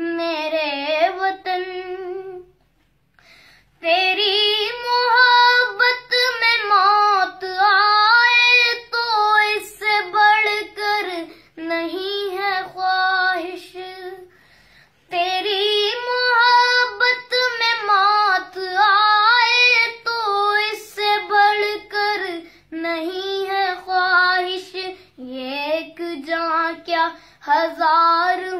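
A high voice singing a melody solo with almost no accompaniment, pausing briefly twice between phrases.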